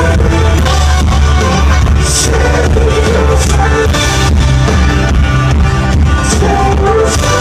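Live rock band playing an instrumental passage of the song, loud and dense, with a heavy bass floor and repeated cymbal crashes, no vocals.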